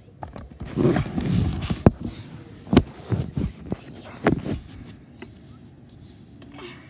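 Handling noise from a phone held close to the floor: a burst of rustling, then a series of sharp knocks and thumps as the child crawls and bumps about.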